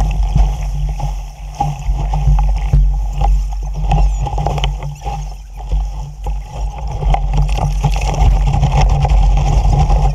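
Strong wind buffeting the microphone with a heavy low rumble, mixed with water splashing and slapping against a small sailboat's hull.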